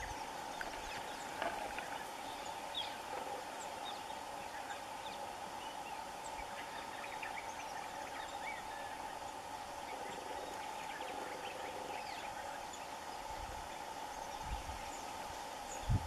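Outdoor wetland ambience: many short, high bird chirps over a steady mid-pitched hum, with a few low thumps near the end.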